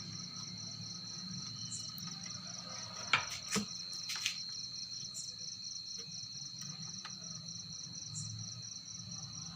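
A steady high-pitched pulsing trill, insect-like, with a continuous high whine, over a low steady hum; a few light clicks come about three to four seconds in.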